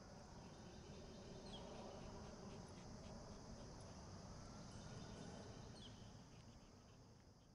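Near silence: faint, steady chirring of insects, fading out near the end.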